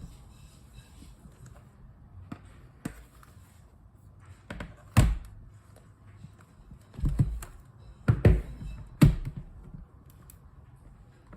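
A handful of separate knocks and thumps, hard objects being set down or handled, the loudest about halfway through and a cluster near the end.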